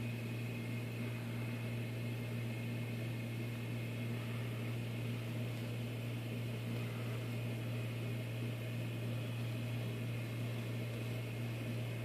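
Steady low hum from a running machine, with a constant hiss over it and no change throughout.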